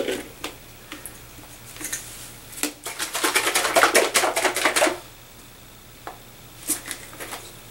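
Plastic spray bottle and its trigger-sprayer top being handled: a few scattered knocks and clicks, with about two seconds of rapid clicking and rattling in the middle, the loudest part.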